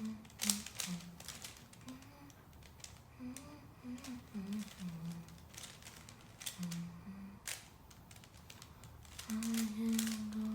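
Plastic 3x3x3 Rubik's cube being turned by hand: irregular clicks and clacks of the layers turning. Over them a person hums a few low notes, holding one longer near the end.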